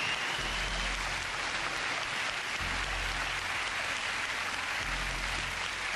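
Studio audience applauding, a steady dense clapping, with long low bass notes of background music underneath.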